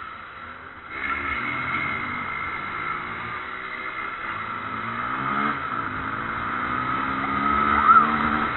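Motorcycle engine accelerating hard, its pitch climbing, dropping once about five and a half seconds in, then climbing again. A brief sharp chirp that rises and falls near the end is the loudest moment.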